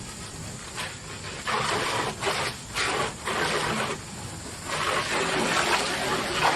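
Water spraying from a garden hose onto a truck tool box, rinsing off degreaser: a hissing spray that comes and goes in spurts as the stream moves over the surface.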